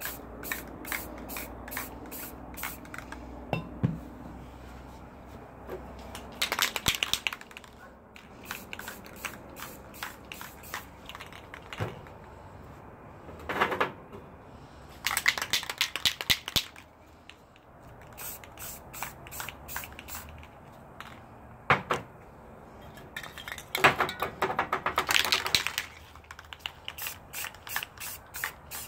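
Aerosol spray paint can hissing in short bursts, four of them, the longest lasting about two seconds; between the bursts, quick runs of sharp rattling clicks.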